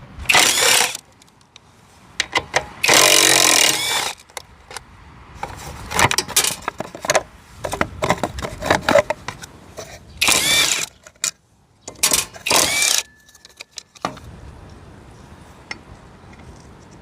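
Honda Leader AF03 two-stroke scooter engine being cranked in about five short bursts, each cut off within about a second, without settling into steady running.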